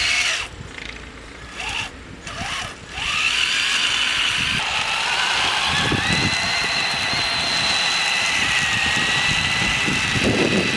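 RC truck's Titan 12T 550 electric motor and Summit transmission whining as the tracked truck drives through snow. The throttle cuts in and out several times in the first few seconds, then the high whine holds steady, climbing in pitch at about five seconds, with a few low knocks from the tracks.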